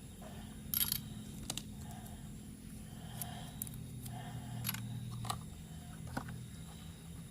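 Small sharp clicks and knocks of plastic toy train parts being handled and fitted together, a few times over soft rustling, with a low steady hum underneath.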